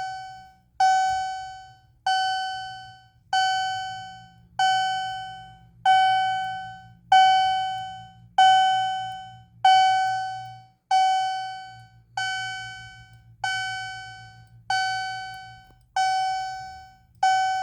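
Wheelock CH-DF1 fire-alarm chime sounding on its first power-up: a single bell-like note struck over and over, about once every 1.25 s, each strike ringing and fading before the next. A quiet, peaceful tone.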